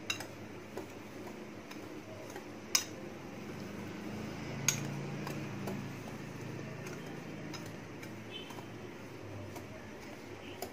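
Metal wire whisk stirring dry semolina and sugar in a ceramic bowl: a soft scraping rustle, with a few sharp clicks where the whisk knocks the bowl.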